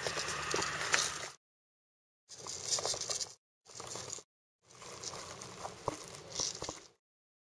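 Footsteps crunching over dry grass and stony ground, in short stretches broken by gaps of dead silence.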